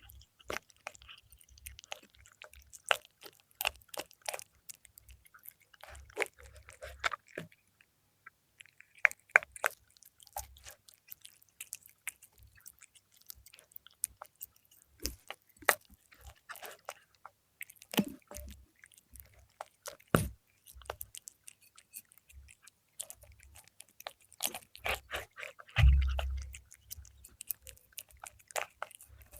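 A cat chewing and crunching fried milkfish, with sharp, irregular crunches and short pauses between bites. A low thud comes near the end.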